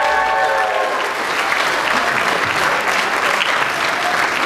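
Audience applause, steady and dense throughout. Over its first second the last held chord of group singing dies away.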